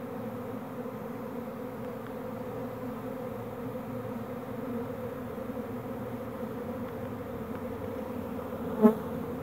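Honeybee swarm buzzing in the air: a steady, many-bee hum with a clear low pitch, made as the swarm gathers where the queen has settled. A brief louder tone near the end.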